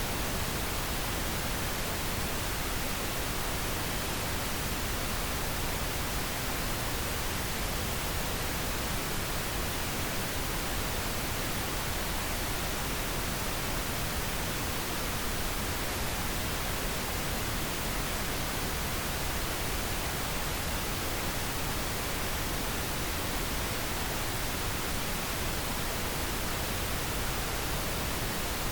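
Steady pink noise: an even, unchanging hiss spread across all pitches, with no breaks or events.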